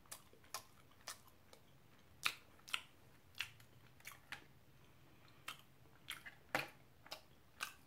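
Close-miked mouth sounds of someone chewing food: an irregular series of short, sharp, wet clicks and smacks, about fifteen in all.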